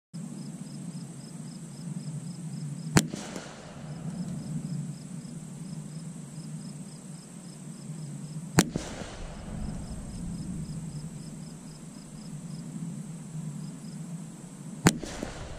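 .22 LR gunshots: three single sharp shots about six seconds apart, each with a short echo.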